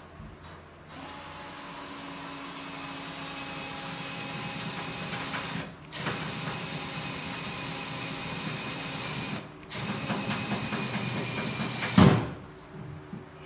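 Cordless drill boring a twist bit through a sheet-metal car hood: three runs of a few seconds each, the motor whining steadily, with short stops between. A sharp knock near the end is the loudest sound.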